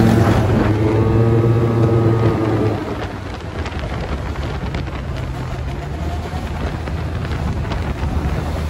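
Sport quad's engine running hard alongside during a wheelie, a loud engine note that eases off after about three seconds. Then wind rush and road noise over a lower engine hum from riding at speed.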